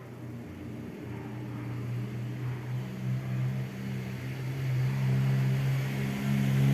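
A motor running at a steady pitch, growing steadily louder.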